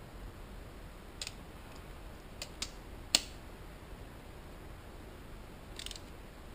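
A handful of short metal clicks and taps as a hand tool works among the valve gear of a 2001 Suzuki GSX-R 750 cylinder head, the sharpest about three seconds in.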